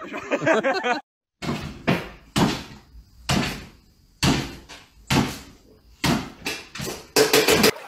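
Small dog jumping up again and again against a kitchen cabinet, its paws and body knocking the cupboard door and landing on a wooden floor: a run of sharp knocks about one every half to one second.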